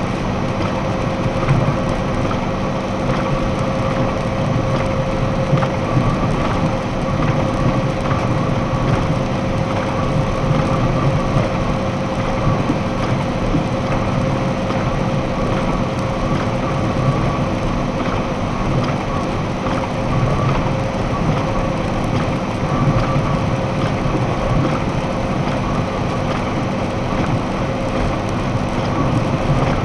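Steady road noise in a box truck's cab at highway speed: the engine drones and the tyres hiss on wet pavement, with a constant whine running through it.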